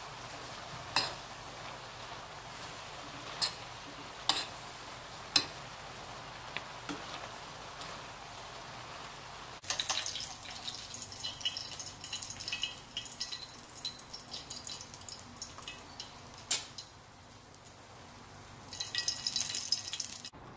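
Spicy pork stir-fry sizzling in a stainless steel pan, with the stirring utensils knocking sharply against the pan four times. After a sudden cut, a crackling sizzle and a sharp clink as hot pan-grilled mackerel is set on a plate.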